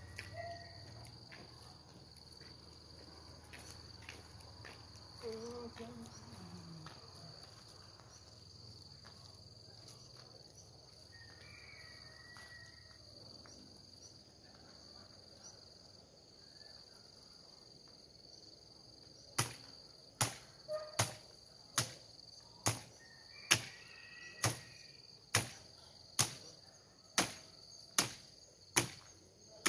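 A steady insect chorus, with a few short bird chirps. From about two-thirds of the way in comes a regular run of sharp chopping strokes, a little more than one a second, as the base of a bamboo thicket is hacked at.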